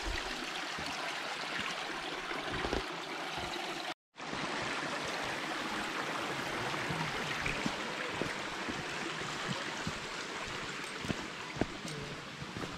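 Small mountain brook rushing and trickling over rocks, a steady wash of water. Footsteps on the gravel path come in near the end.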